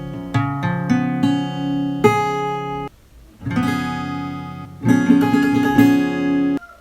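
Acoustic guitar with a capo on the second fret, playing plucked and strummed chords that ring on. The playing breaks off for about half a second about three seconds in, then resumes.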